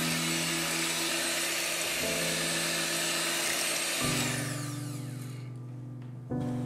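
Electric hand mixer whirring as its beaters whip a thick custard cream in a steel pot, then switched off about four seconds in, its motor whine falling away over the next second. Background music with slow chord changes plays throughout.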